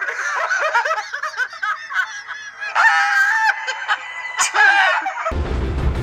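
A man laughing hard in quick, high-pitched bursts, mixed with poultry calls. It cuts off about five seconds in, and music starts.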